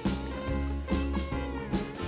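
Background music: an upbeat jazzy tune with brass and a steady beat.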